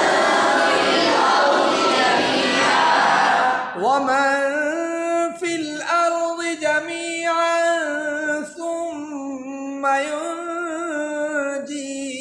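A group of voices recites a Quran phrase together in unison for about four seconds. Then a man alone recites the next phrase in a slow, melodic tajweed chant with long held notes.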